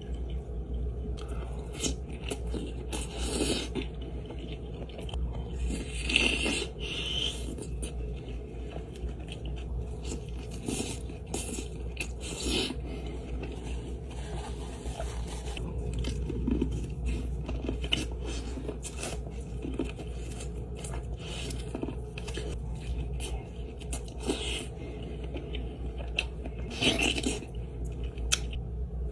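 Close-miked eating of seafood boil: bites, chewing and irregular sharp crunches, the loudest about six seconds in and again near the end.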